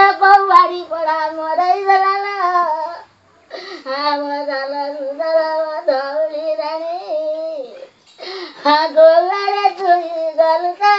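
An elderly woman wailing a sung lament in grief for her dead pet cat: long, high, wavering phrases that break off briefly about three seconds in and again about eight seconds in.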